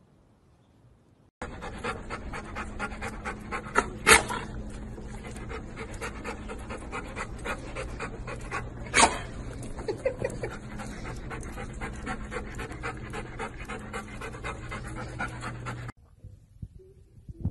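Golden retriever panting rapidly over a steady low hum, with two short, louder sharp sounds about four and nine seconds in. The panting stops abruptly near the end.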